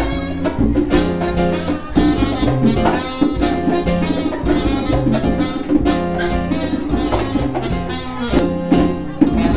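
Salsa music from a small Latin band: bass, percussion and a plucked string instrument playing with a steady beat.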